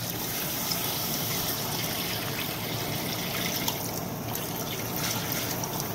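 Hot water poured from a bowl into an aluminium pot of masala-coated fish pieces, a steady splashing pour that thins to drips near the end.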